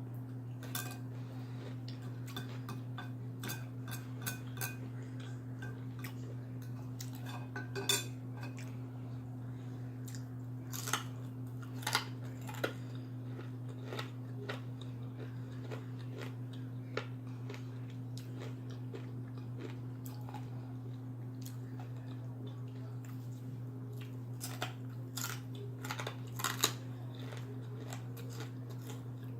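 Cutlery clinking and scraping on a plate with occasional chewing and crunching of food, as sharp scattered clicks that cluster in a few busy spells. A steady low hum runs underneath.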